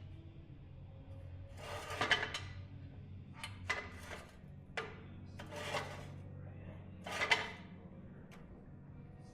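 Hard plastic car body parts being handled and worked into place: a series of short scraping and clicking bursts, about six of them.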